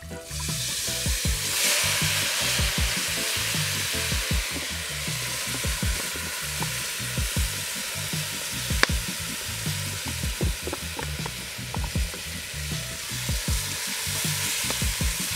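Hot oil sizzling in a cooking pot where curry is being burned with pepper and garlic. The sizzle jumps up suddenly at the start and stays loud, with scattered knocks of a utensil against the pot.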